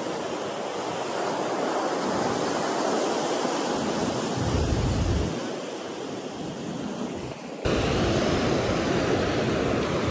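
Ocean surf breaking and washing up the beach, a steady hiss with wind buffeting the microphone at times. About three-quarters of the way through it jumps to a louder, closer wash of surf.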